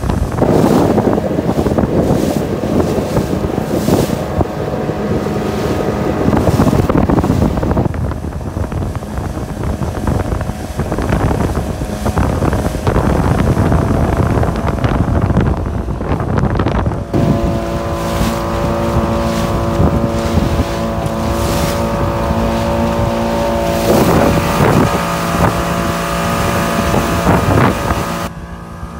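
Mercury outboard motor running at speed and driving the boat, with wind buffeting the microphone and water rushing past. The engine's steady tone comes through more clearly a little past halfway.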